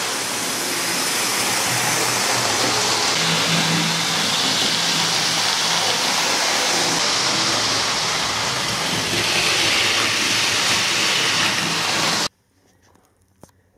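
Model train running on layout track: a steady rushing rumble with a faint motor hum. It cuts off suddenly near the end, leaving near silence.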